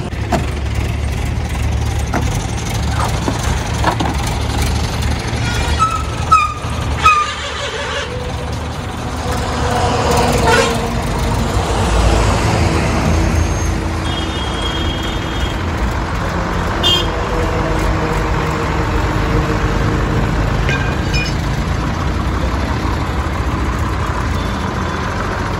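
Motor vehicle running with a steady low engine and road rumble. Two short, loud high-pitched blips come about six and seven seconds in.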